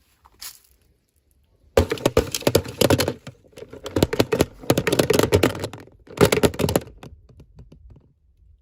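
Plastic packaging crinkling and crackling as a toy package is handled and opened, in three bursts of dense, rapid clicks.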